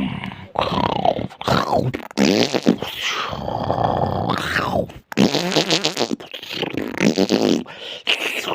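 A person's voice making wordless vocal noises, grunts and groans with the pitch sliding up and down, with a fluttering rasp just past the middle.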